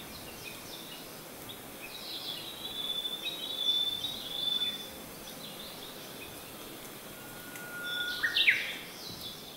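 Birdsong sound effect: many short chirps and whistles, busiest a few seconds in and again near the end, where one whistle holds a steady note and then jumps upward in steps.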